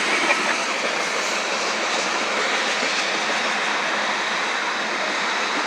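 Long train rolling past: a steady noise of wheels on rails and railcars.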